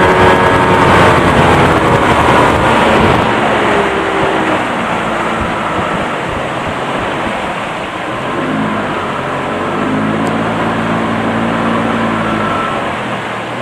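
1987 Yamaha 30 HP three-cylinder two-stroke outboard running flat out, then throttled back about three seconds in. Water rushes along the aluminium hull as the boat slows, and the motor settles to a lower, steadier running note for the last few seconds.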